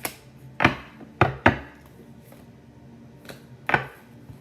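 Tarot cards being handled and set down on a table: a series of about six sharp taps and knocks, irregularly spaced.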